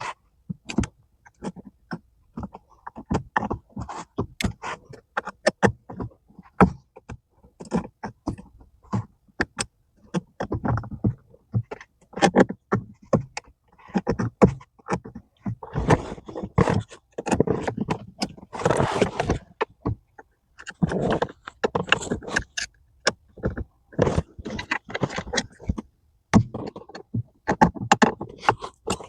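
Brake pedal cover being forced onto a car's brake pedal: irregular scraping, rubbing and knocks as the tight cover is worked over the pedal.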